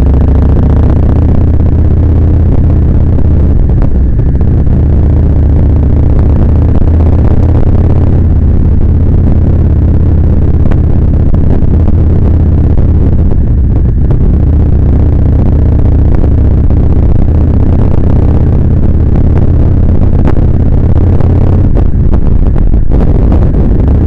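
Kawasaki Vulcan 1600 Nomad's V-twin engine running steadily.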